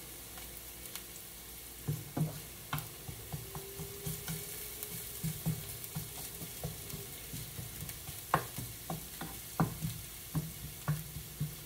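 Garlic sizzling in olive oil in a frying pan as it fries toward golden brown, with a utensil stirring and knocking against the pan in irregular strokes from about two seconds in.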